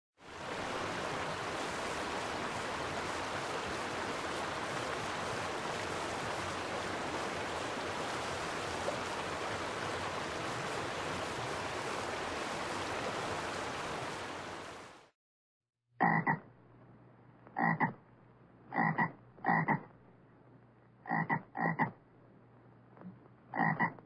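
A steady, even rushing noise fades in, holds for about fifteen seconds, then stops. After a short pause a frog croaks about eight times in short single and paired calls a second or so apart.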